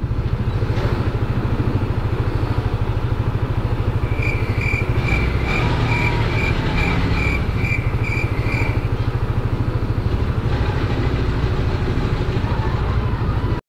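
Yamaha scooter's single-cylinder engine idling steadily with a fast, even pulse. In the middle a run of about ten short, high beeps sounds at roughly two a second.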